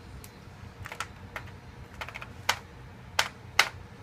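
Key presses on an old AT keyboard with Fujitsu switches: about eight single, irregularly spaced clicks as the Delete key is tapped during boot to get into the BIOS. A faint steady low hum runs underneath.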